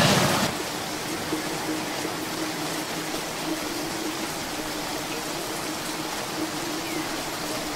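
Steady hiss of rain, with a faint steady hum underneath.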